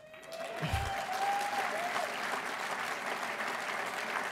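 Audience applauding, swelling up within the first second and then holding steady, with one long rising cheer over it near the start.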